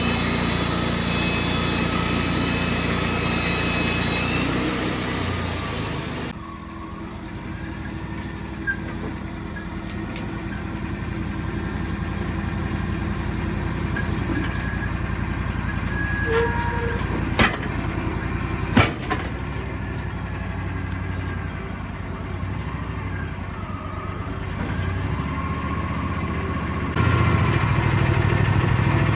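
Wood-Mizer sawmill engine running, loud for about six seconds, then dropping suddenly to a lower running level with faint rising and falling whines. Two sharp clicks come a little over a second apart near the middle, and the louder running returns near the end.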